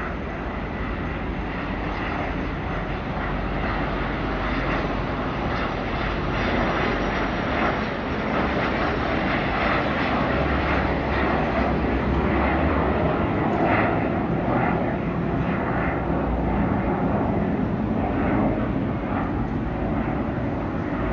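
Single Williams FJ33 turbofan of a Cirrus Vision Jet climbing out after takeoff, heard from the ground as a steady rushing jet-engine noise. It swells slightly through the middle and eases a little near the end.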